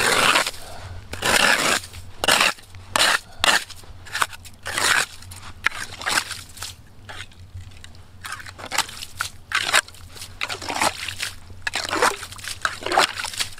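Irregular crunching of snow and ice, a string of separate crunches about a second apart, some closer together.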